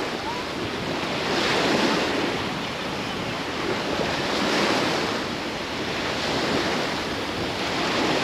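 Sea surf washing onto a sandy beach, each wave swelling and falling away every two seconds or so, with wind.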